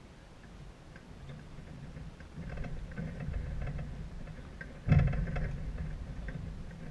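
Wind rumbling on the microphone, with a sudden loud buffet about five seconds in that dies away, and faint scattered ticks.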